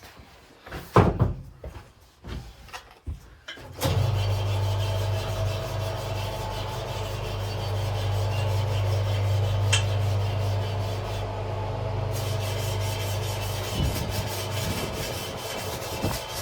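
A few knocks and clicks, then about four seconds in a tyre-changing machine's motor starts and runs steadily with a low hum. Rubber rubs against the machine as the tyre is worked off the wheel.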